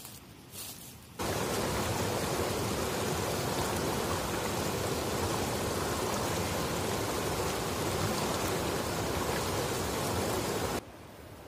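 Rocky mountain stream rushing and splashing over boulders, a loud, steady rush of water that starts suddenly about a second in and cuts off just before the end.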